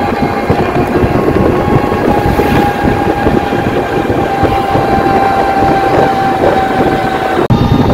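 Running noise heard from inside a moving vehicle on the road: a dense, steady rumble with a constant whine held at one pitch, broken by a brief drop-out near the end.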